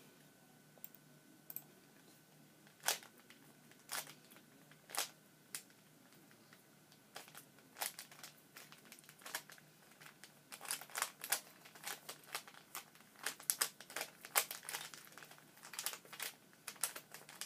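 Plastic Rubik's 3x3 cube being scrambled by hand: its layers turning with short, sharp clicks. A few clicks come well apart at first, then quicker runs of clicks from about ten seconds in.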